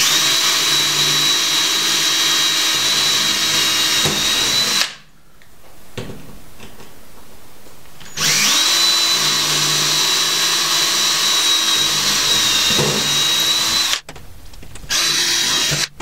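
Cordless drill boring 1/8-inch pilot holes into metal diamond plate: a steady motor whine held for about five seconds, stopping, then running again for about six seconds, with a brief burst near the end.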